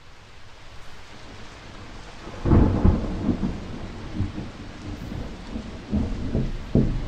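Thunderstorm: steady rain hiss comes in at the start. A loud rumble of thunder breaks about two and a half seconds in, and more thunder rolls near the end.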